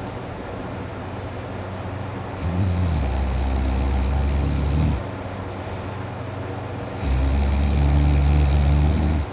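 A man snoring loudly in deep sleep with his mouth wide open: two long, low snores of about two and a half seconds each, one a couple of seconds in and one near the end.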